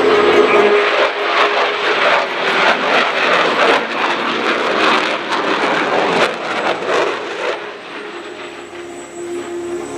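A USAF F-16 Fighting Falcon's F110-GE-129 turbofan roaring by on a low pass, loud and crackling, fading away after about seven and a half seconds. Music plays faintly under it at the start and again near the end.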